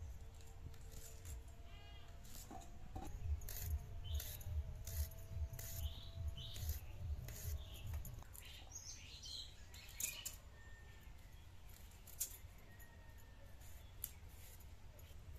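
Repeated short scraping strokes of knives, one scraping the skin off raw white radishes and one scaling small tyangra fish, with some dull thudding in the middle.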